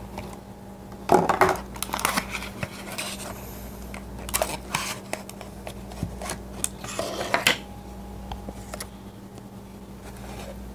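Clear plastic packaging crackling and rustling in bursts as a figurine is worked out of it, the loudest about a second in, with a few light clicks.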